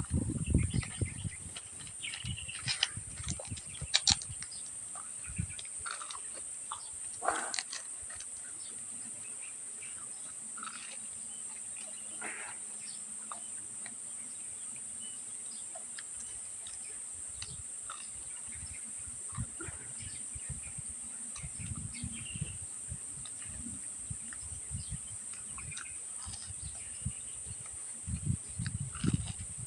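Close-miked eating: scattered crunches and crackles and clusters of soft low chewing thumps, heavier near the end. A steady high-pitched insect-like whine runs underneath throughout.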